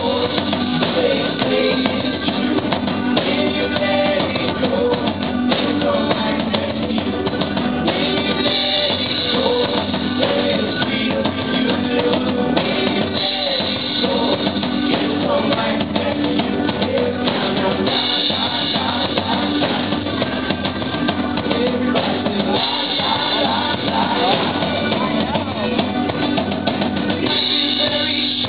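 Live band playing a song, with a drum kit keeping a steady beat under guitars and other instruments.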